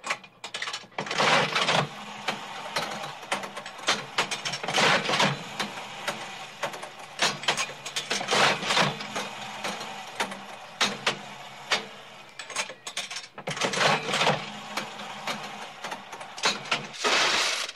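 Old mechanical slot machine in play: a steady whirring and clicking of the mechanism, with loud clattering bursts every few seconds.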